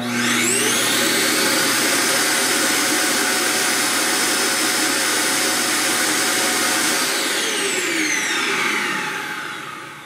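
Self-emptying base of an iRobot Roomba j7+ sucking the dirt out of the docked robot's bin into a bag, loud. Its motor starts abruptly and spins up with a rising whine, runs steady, then winds down with a falling whine and fades out over the last few seconds.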